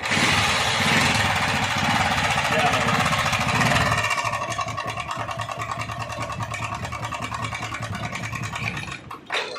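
Hero Honda CD100 SS motorcycle's single-cylinder four-stroke engine running: held faster and louder for about four seconds, then settling to an even, pulsing idle, and cut off near the end. The mechanic puts its 'tan tan' knocking down to a worn timing chain and play at the crank.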